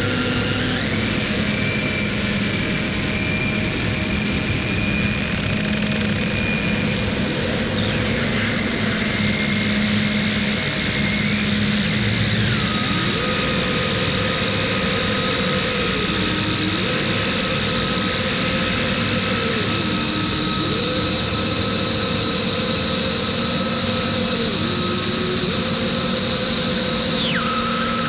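Harsh noise music: a dense, unbroken wall of distorted noise with sustained high whining tones that hold steady and slide down in pitch three times, over a low drone. In the second half, mid-pitched tones step up and down.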